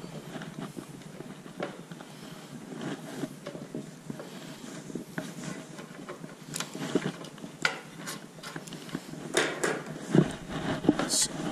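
Pliers working a brass hose connector loose on a tap box: metal scraping and handling noise, with a scatter of sharp clicks in the second half.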